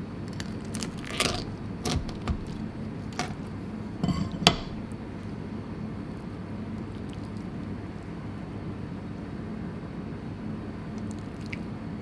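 Kitchen knife clicking and scraping against a cutting board as a sweetfish is split open, a handful of short sharp clicks in the first four and a half seconds, the last one the loudest. A steady low hum runs underneath.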